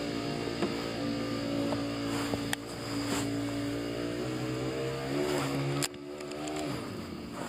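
A boat motor running steadily, its pitch rising a little about five seconds in. After an abrupt cut near six seconds, a motor's pitch drops away as it slows.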